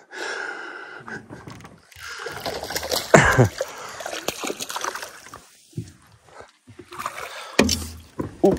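Water splashing irregularly beside a boat as a hooked fish is played at the surface and netted, the loudest splash about three seconds in.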